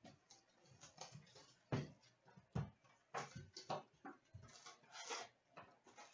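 Quiet irregular crinkling, rustling and light knocks of a cardboard hockey card box being opened and its foil-wrapped packs handled and torn open. The loudest knocks come about two seconds in.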